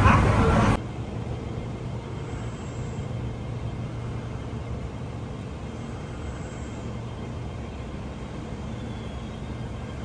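Running noise inside a moving MTR train car cuts off abruptly under a second in. It gives way to a steady low rumble from an MTR train moving alongside the platform behind glass platform screen doors.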